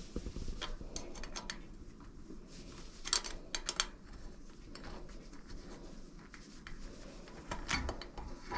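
Quiet, scattered clicks and light metallic taps of a hand tool working a bolt on the bike, with a cluster of clicks about three seconds in and another near the end.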